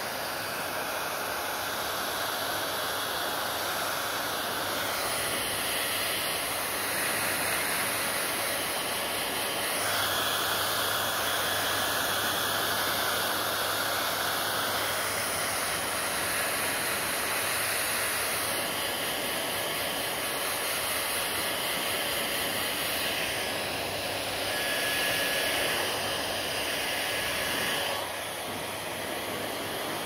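Handheld hair dryer blowing steadily, its rushing air shifting in tone every few seconds as it is moved around the hair.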